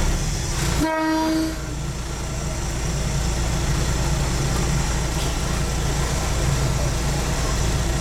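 A train horn sounds one short toot at a steady pitch about a second in, lasting under a second, over the steady low running of the train's diesel engine, heard from the driver's cab.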